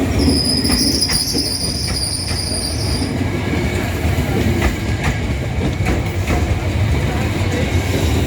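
Electric train running on the rails with a low rumble and regular wheel clacks. For about the first three seconds its wheels give a high-pitched squeal that then cuts off.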